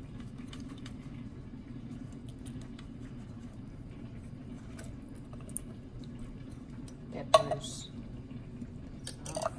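Kitchen dishware handled over a steady low hum: faint light clicks, then one sharp ringing clink about seven seconds in, and a shorter clatter near the end.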